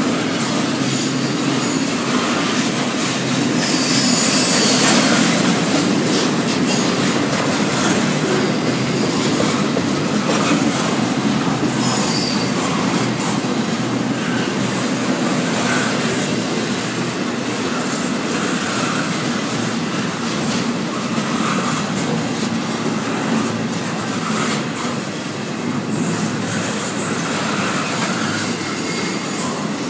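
Double-stack intermodal freight train's well cars rolling past close by: a steady rumble of steel wheels on rail, with wheel squeal rising above it at times, most strongly about four to five seconds in.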